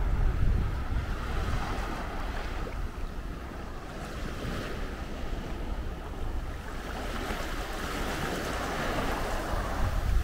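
Small sea waves breaking and washing up the beach, with wind rumbling on the microphone. A wash of surf swells up in the last few seconds.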